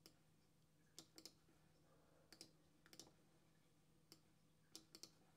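Faint computer mouse clicks over near silence, about a dozen, some single and some in quick pairs, as spreadsheet rows are selected and edited. A faint steady low hum lies underneath.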